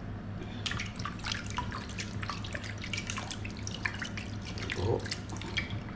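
Mackerel fillet being swished and rubbed by hand in a bowl of salt water, with irregular splashing and dripping from about half a second in. A low steady hum runs underneath.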